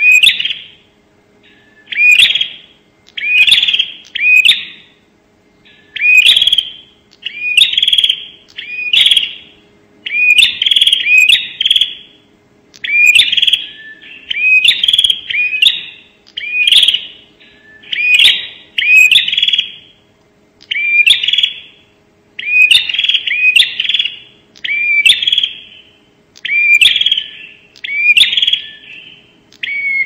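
Prenjak (ashy tailorbird) giving its loud 'nembak' shooting call: short bursts of sharp, quick chirping notes repeated about once a second with brief pauses between them.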